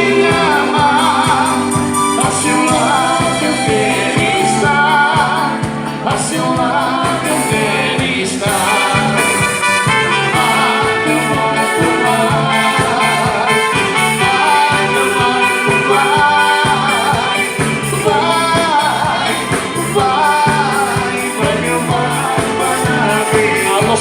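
A band playing music, with a steady pulsing bass beat and a melody line over it.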